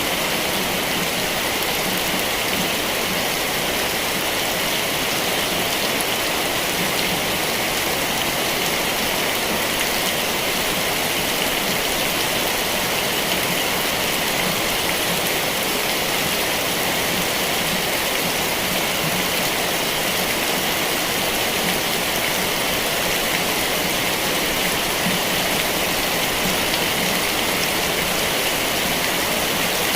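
Heavy rain falling steadily, a dense, even hiss of water with no let-up.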